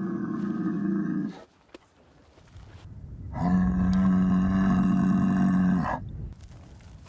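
Cow bellowing twice in a deep, steady-pitched growl. The first call ends about a second in. A low rumble builds before the second, louder call, which runs for over two seconds from about three seconds in. It is a cow with a hormone disorder that makes her act like a bull, growling to guard her herd.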